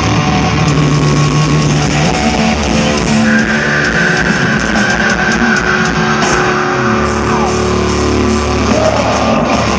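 Symphonic black metal band playing live at high volume through a club PA: distorted electric guitars and full band, with a long held high note from about three to six seconds in. Recorded from within the crowd.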